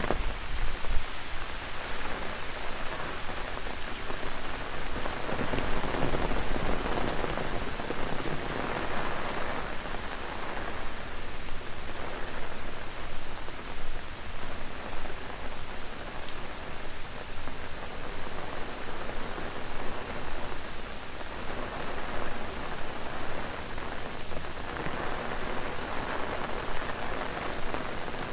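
Heavy rain pattering steadily on an umbrella, with a cicada chorus as a constant high-pitched drone over it.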